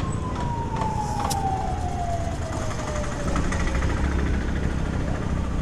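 Air compressor running while a motorcycle's rear tyre is inflated through a hose, with a steady low rumble. A whine slides slowly down in pitch over the first four seconds.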